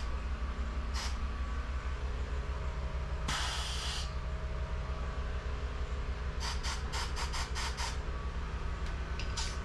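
Tire-changing machine at work under a steady low hum. There is a short hiss of air about three seconds in, then a quick run of sharp clicks about two-thirds of the way through.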